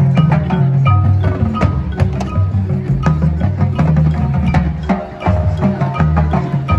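High school marching band playing its field show, with a dense run of percussion strikes and bright mallet-percussion notes over heavy sustained low bass notes.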